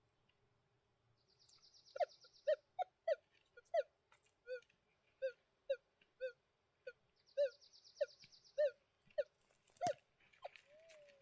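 Metal detector sounding a string of short, low-pitched beeps, about two a second, as its search coil is swung back and forth over rocky tailings and passes over targets. A brief high buzzing trill sounds twice, once early and once about two-thirds of the way through.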